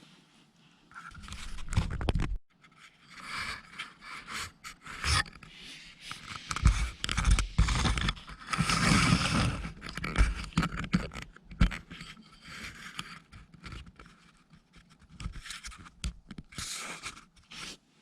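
Irregular scraping and rustling noises with a few dull bumps, loudest in the middle.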